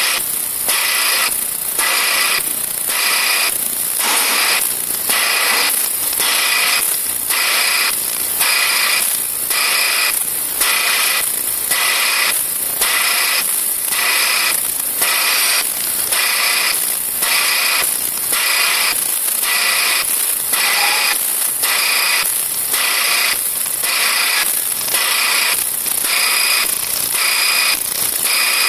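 Vibrating sieve machine running with its ultrasonic system switched on: a steady, loud, high-pitched hiss and whine that pulses evenly about twice a second.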